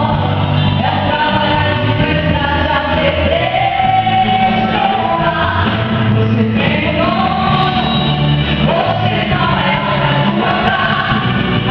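Worship song sung live over instrumental backing.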